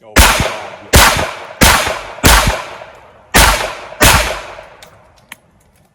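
Six revolver shots fired in quick succession, most about two-thirds of a second apart with a slightly longer gap before the fifth, each trailing off in a short echo.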